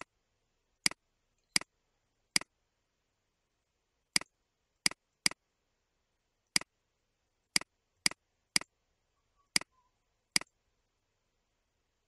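Computer mouse button clicking, about thirteen single clicks spaced irregularly, with silence between them.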